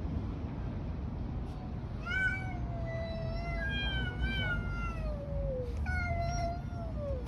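Stray cats caterwauling in a fight standoff: long, drawn-out yowls that waver and slowly fall in pitch, starting about two seconds in and overlapping in the middle, over a steady low background rumble.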